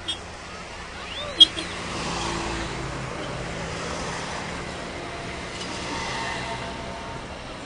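Steady road and engine noise of a vehicle driving along, heard from inside it, with a short sharp click about a second and a half in.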